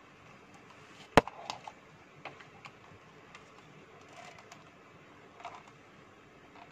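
Plastic parts of an LED ring light and its desk stand clicking and knocking as they are handled and fitted together. One sharp, loud click comes about a second in, followed by scattered lighter clicks and taps.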